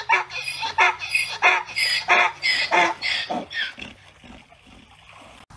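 Donkey braying: a run of rhythmic hee-haw calls, about three a second, that die away about three and a half seconds in.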